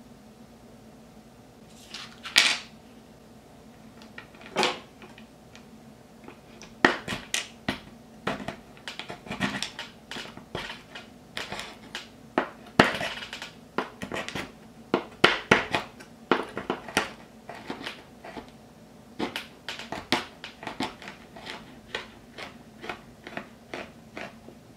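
Kitchen knife chopping matcha chocolate bars on a wooden cutting board. Two single cuts come first, then quick, irregular chops of the blade knocking through the chocolate onto the board.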